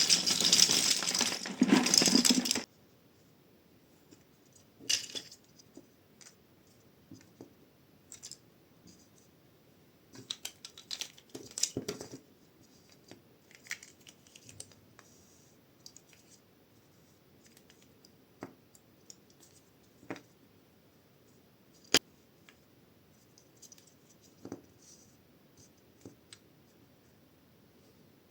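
Plastic LEGO bricks clicking and rattling as they are handled and pressed together, in scattered single clicks and short bursts. A loud, dense rush of noise fills the first two seconds or so and then cuts off suddenly.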